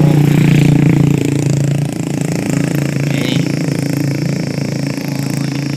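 Motorcycle engine idling close by, a steady low hum that drops a little in level about two seconds in.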